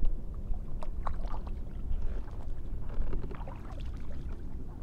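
Sounds of a kayak on the water: a steady low rumble of wind on the microphone, with scattered light knocks and small water splashes about a second in and again around three seconds in.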